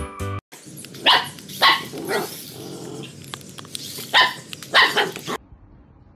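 A large dog barking at a remote-control toy car: two pairs of sharp barks, about three seconds apart.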